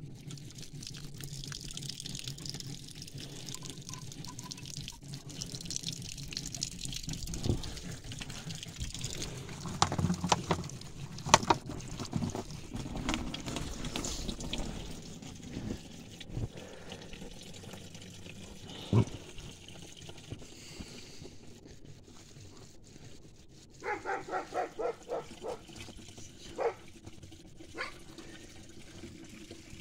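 Thin stream of water trickling from an outdoor brass tap, running into a plastic bottle, with a few sharp knocks about ten seconds in. Later a dog barks in a quick run of barks, then twice more.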